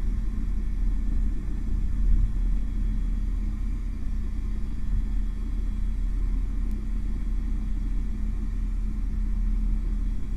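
Airbus H125 (AS350) helicopter heard from inside the cabin in flight: a steady low rumble of rotor and turbine with a constant hum.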